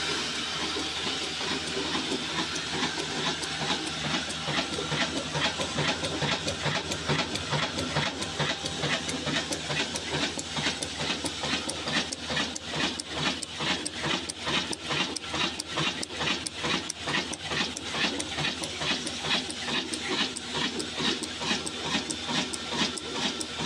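An old stationary diesel engine running steadily under load, driving a flour mill by belt. Its firing strokes give a regular, even beat over a hissing mechanical clatter.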